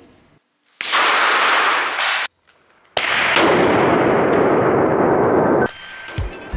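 A home-made two-bolt banger, match-head sulphur packed between two bolts in a nut, exploding on a concrete floor. It is heard as two loud, sudden blasts with a long noisy tail, the second starting about two seconds after the first and fading before it cuts off near the end.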